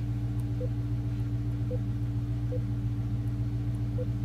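Dodge Challenger idling, heard from inside the cabin as a steady low hum.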